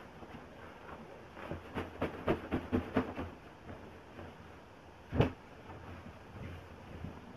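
A pillow and bedding being handled. The fabric rustles, a quick run of soft thumps comes about two to three seconds in as the pillow is worked, and then one louder thump a little after five seconds as the pillow is pushed down onto the bed.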